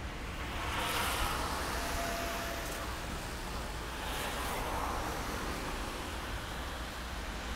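Outdoor traffic noise: a steady low rumble, with two vehicles passing, one about a second in and another around four seconds in.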